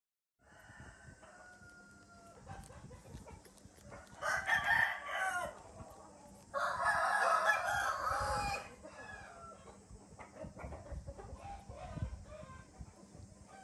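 A rooster crowing twice, each crow lasting one and a half to two seconds, about four and seven seconds in, over a steady high hiss.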